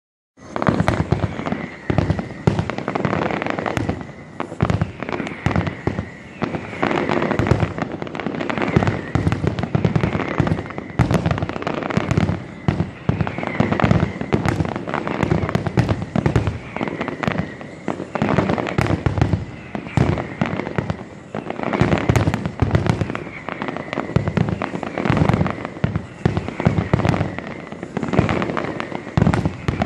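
Fireworks display: a dense, continuous barrage of bangs and crackling reports, many shells going off in quick succession with hardly a pause.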